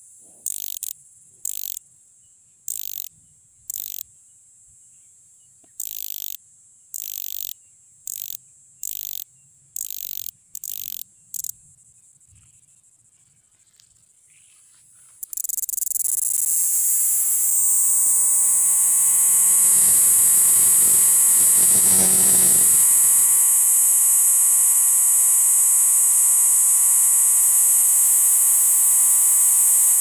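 Cricket (jhingur) calling: about a dozen short, shrill chirps, roughly one a second, for the first eleven seconds, then a pause of a few seconds. About fifteen seconds in it breaks into a loud, continuous, high-pitched buzzing trill.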